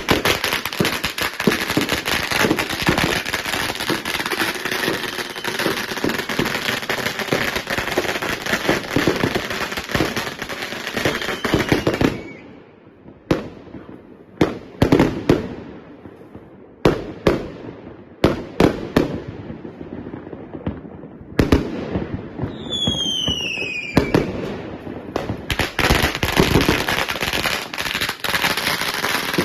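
Fireworks and firecrackers going off: about twelve seconds of dense, rapid crackling, then scattered single bangs with short gaps, a falling whistle about three quarters of the way through, and dense crackling again near the end.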